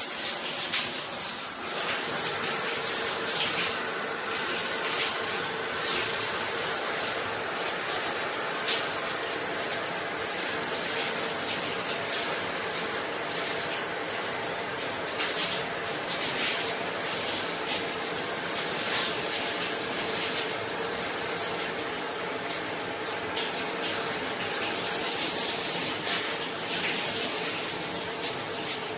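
Shower running steadily in a bathroom: a continuous hiss of water spraying and spattering, with a faint steady hum underneath.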